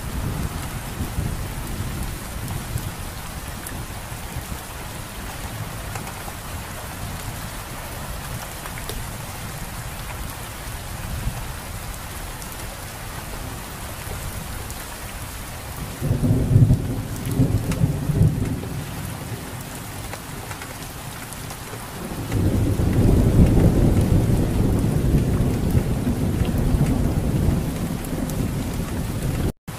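Steady rain falling on foliage, with thunder: a short low rumble about halfway through, then a longer, louder rumble rolling in about three-quarters of the way in. The sound cuts out for an instant just before the end.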